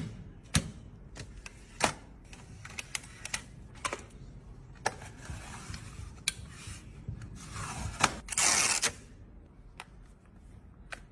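Unboxing an iPhone 16 Pro: sharp clicks and taps of the box and packaging being handled, with rustling about five seconds in and a louder rustling scrape lasting about a second near eight seconds in.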